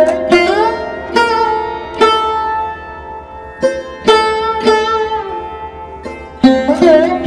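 Background music on a plucked string instrument: single notes struck every half second to second and left to ring out, several of them sliding in pitch.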